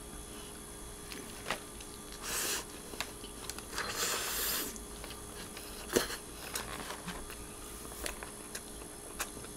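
Faint sounds of a man biting into and chewing a burger, with two short soft noisy stretches and scattered small clicks.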